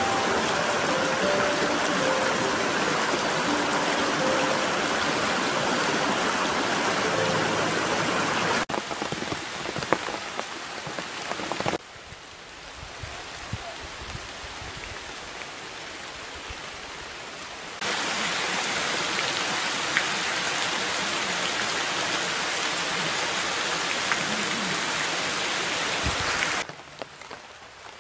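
Steady heavy rain falling on leaves, in cut-together clips that change loudness: loud for the first nine seconds, softer from about twelve seconds in, loud again from about eighteen seconds, and softer near the end. Soft piano notes sound over the first eight seconds.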